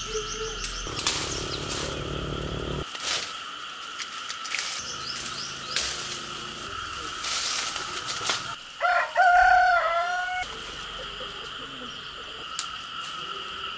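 A rooster crows once, about nine seconds in, the loudest sound here, over a steady high-pitched drone with scattered short rustles.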